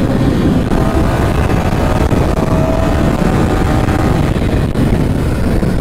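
Yamaha R15M's single-cylinder engine running hard as the motorcycle accelerates at highway speed, its note rising gently, mixed with heavy wind buffeting on the camera.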